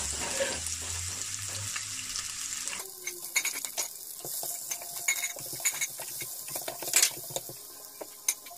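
Sliced onions sizzling in hot olive oil in a stainless-steel pan while they are stirred, with scattered clicks and scrapes of a utensil against the pan. The sizzle drops noticeably quieter about three seconds in.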